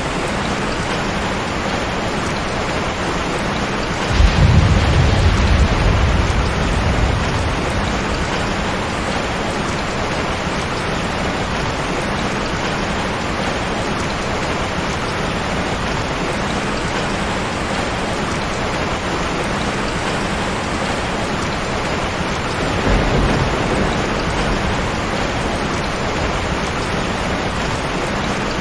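Heavy rain falling steadily, with thunder: a sudden low rumble about four seconds in that rolls on for a couple of seconds, and a weaker roll of thunder about three quarters of the way through.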